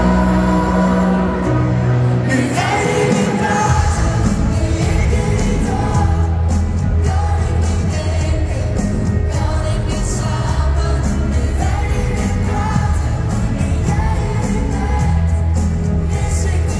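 Live pop song played loud through an arena PA, with singing over a band, recorded from the stands. The bass and a steady drum beat come back in about four seconds in.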